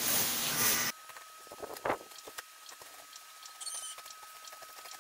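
Hands on a large cardboard shipping box: a rustling scrape on the cardboard for about a second, which stops suddenly, then a few faint scratches and clicks at the box's edge.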